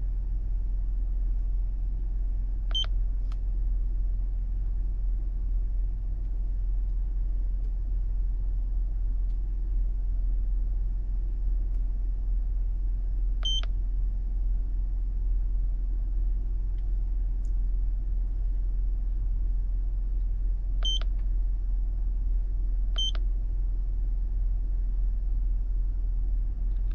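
Steady low rumble of the 2010 Honda Odyssey's V6 idling, with four short high electronic beeps from an OBD2 scan tool as its buttons are pressed to page through live sensor data.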